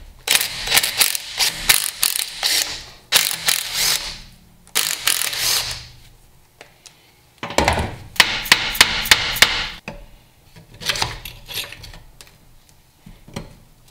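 Cordless impact driver backing bolts out of a Dana 20 transfer case housing, hammering in four bursts of one to two and a half seconds each. Near the end, a few sharp metal knocks and clicks.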